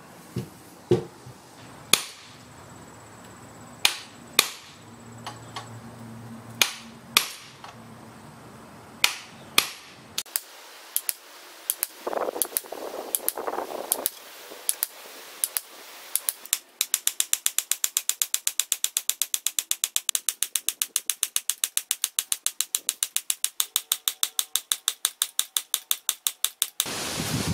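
Sharp metal-on-metal clicks and taps on the clamped steel body of a dovetail infill plane. First come scattered single knocks, then from about halfway a rapid, evenly spaced run of clicks that stops near the end.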